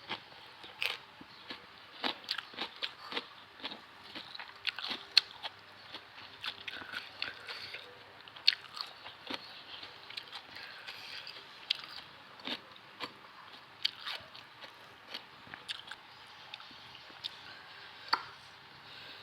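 A person biting and chewing crunchy food: irregular crunches and sharp clicks, some much louder than others.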